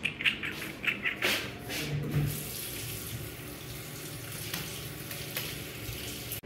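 Water running from a bathroom tap into a stone trough sink and over hands being washed under it, starting about a second in.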